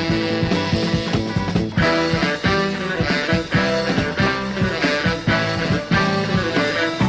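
Band music with guitar playing to a steady beat.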